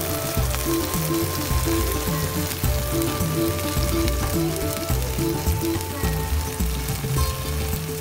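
Hot clay pot of chicken rice sizzling and crackling, under background music with a repeating short-note melody and bass line.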